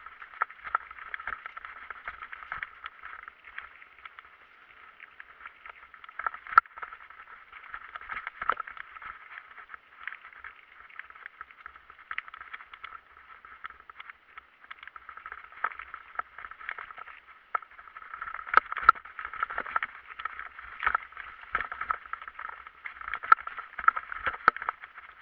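Bicycle riding noise: a crackly rattle with many irregular clicks and several sharp knocks, as the bike goes over rough ground.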